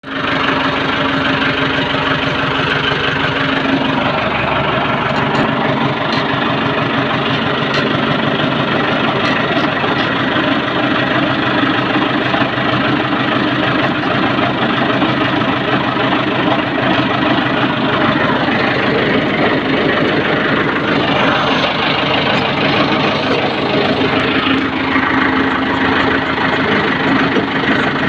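Tractor diesel engine running steadily, heard close up from the driver's seat. Its note shifts slightly about four seconds in and again near the end.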